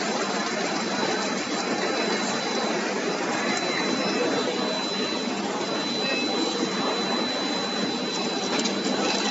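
Steady machine noise from a PCB chain conveyor and the soldering-line machinery around it, with a thin, steady high whine over it.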